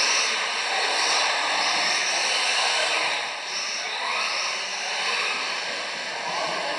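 Several electric 1:10 RC touring cars racing: high-pitched motor and drivetrain whine that rises and falls in pitch as the cars accelerate, brake and sweep past.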